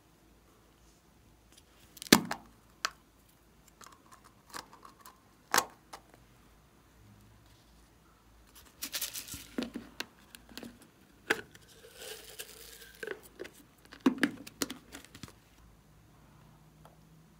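Hands handling plastic toys and containers over slime trays: several sharp plastic clicks and taps, the loudest about two seconds in, then stretches of crinkling and rustling near the middle and toward the end.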